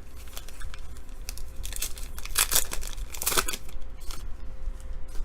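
A pack of football trading cards having its wrapper torn open and crinkled, with two louder rips around the middle.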